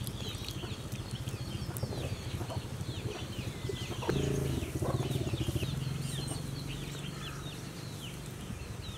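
Chickens clucking and birds chirping in many short, quick calls, over a low steady hum that gets louder about four seconds in.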